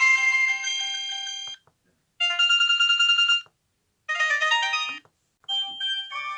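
Samsung E1202i mobile phone playing its built-in electronic tones one after another. A melody cuts off about a second and a half in, followed by short jingles of rapid notes, each about a second long, separated by brief silences.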